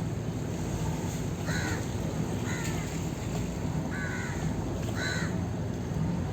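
Crows cawing: four short calls about a second apart, over a steady low rumble.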